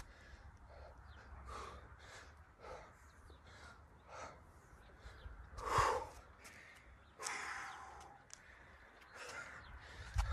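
A man breathing hard from exertion mid-workout, with quick, noisy breaths in and out about every half second. A louder, harder exhale comes just before six seconds in.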